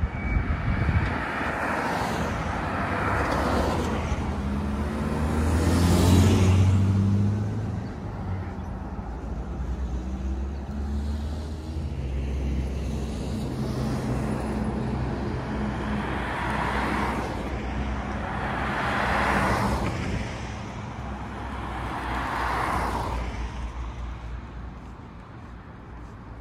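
Road traffic on a multi-lane street: about five cars pass one after another, their tyre noise swelling and fading. The loudest pass, about six seconds in, carries a low engine drone.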